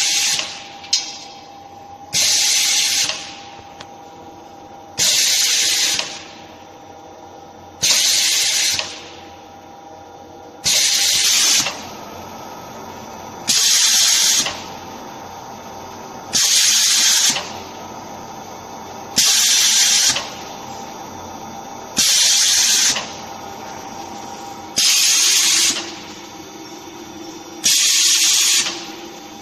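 Diamond wire saw bead grinding machine running: loud hissing bursts of about a second each, repeating evenly about every three seconds over a steady machine hum.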